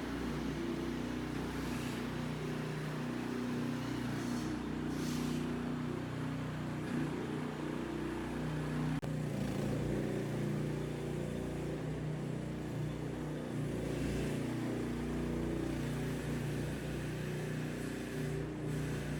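Skid steer loader's engine running at a fairly steady speed while the machine drives and turns, with a brief break about nine seconds in.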